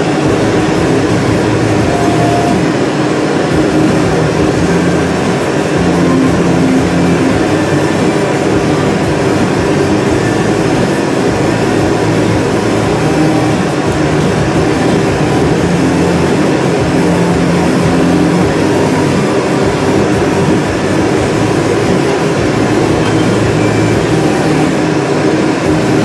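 Steady, loud roar of the gas burners used in borosilicate glassworking, with a low hum under it.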